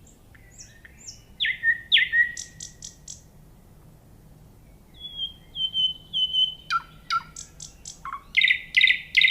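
Common nightingale singing in separate phrases of clear whistled notes, fast repeated notes and rattling trills, with short pauses between them. A loud, rapid trill comes near the end.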